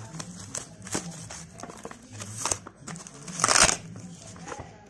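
Corrugated cardboard packaging being pulled open and handled: scattered crinkles and rustles, with one louder rustle about three and a half seconds in as the wrapped box is pulled free.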